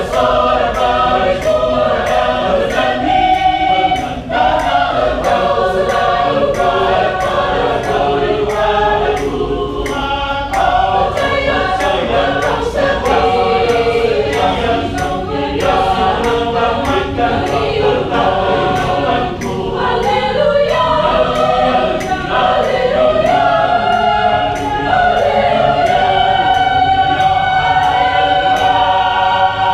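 Choir singing a hymn in harmony, ending on a long held chord. A faint regular click runs underneath, about twice a second.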